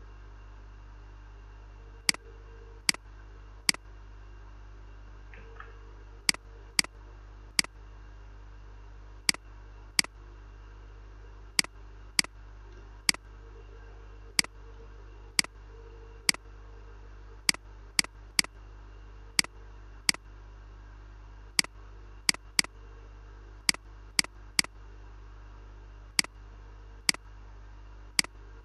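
Computer mouse buttons clicking sharply at irregular intervals, many clicks coming in pairs a fraction of a second apart, over a steady low electrical hum.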